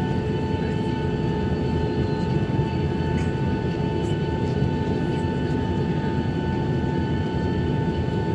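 Steady engine rumble of a Boeing 737-800 heard inside the passenger cabin, with steady whining tones above it.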